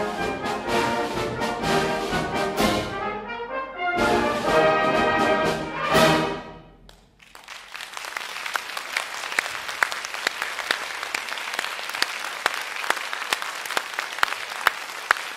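Brass band playing the closing bars of a piece, building to a loud final chord that cuts off about seven seconds in. Audience applause then follows to the end.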